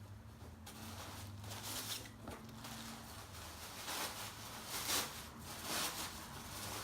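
Rustling and tearing of gift packaging as it is pulled open, in irregular scratchy bursts, loudest about two thirds of the way in.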